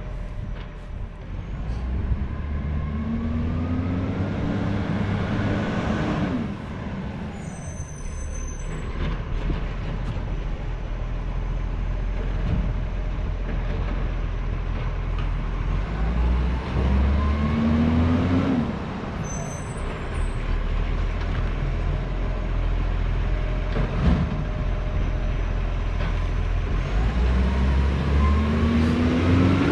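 Garbage truck engine running, revving up three times in a rising pitch and dropping back each time, with a brief high hiss after the first two revs.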